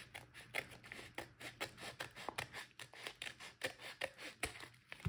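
Scissors snipping along the end of a padded mailing envelope, a steady run of short cuts, roughly four a second.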